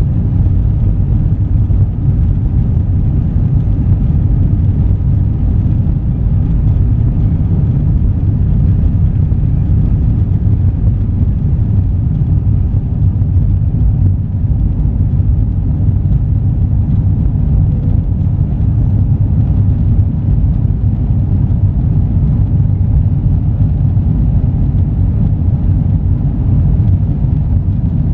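Steady low rumble of an Airbus A321 airliner's engines and airflow, holding an even level without rising or falling.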